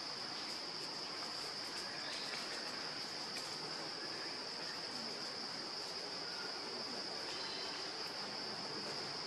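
Insects in the forest keeping up a steady, high-pitched drone over a faint background hiss.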